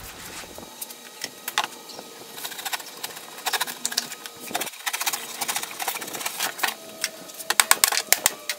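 A hammer knocking and prying the wooden slats off a shipping crate, making runs of quick, sharp knocks and wood clatter. It is loudest near the end, as a slat comes free.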